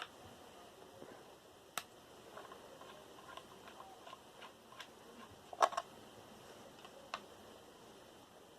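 Scattered light clicks and taps of a screwdriver and small metal computer parts being handled during disassembly, the loudest a quick double click a little past halfway.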